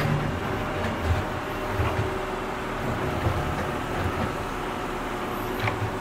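Tractor engine running with a low, uneven rumble while digging, with a couple of faint clicks near the end.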